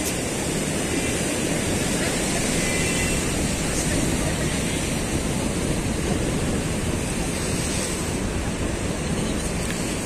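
High, rough sea surf breaking and washing over concrete breakwater blocks: a steady rushing noise with no single crash standing out.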